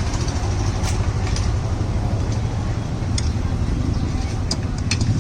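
An engine running steadily with a low rumble, with a few light clicks over it.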